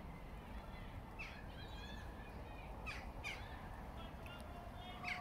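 Birds calling around a pond island: several short, sharp falling calls and some chattering, over a steady low rumble.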